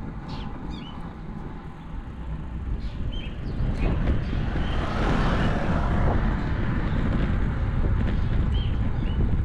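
Wind rushing over a GoPro action camera's microphone while riding a road bike, a low rumble that grows louder about four seconds in. A few short high chirps come through now and then.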